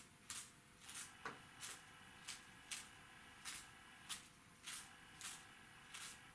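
A thumb flicking the bristles of a toothbrush loaded with white acrylic paint, spattering fine drops onto a canvas: a regular string of faint, short flicks, a little under two a second.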